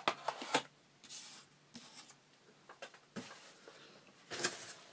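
Hands handling small items and their packaging: scattered light clicks and brief rustles, a little louder near the end.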